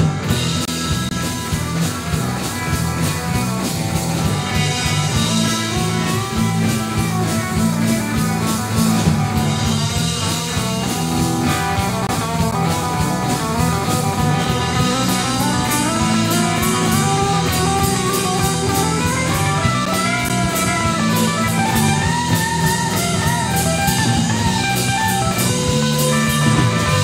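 Rock band playing an instrumental break with no singing: a guitar lead line that slides and bends in pitch over bass and drum kit.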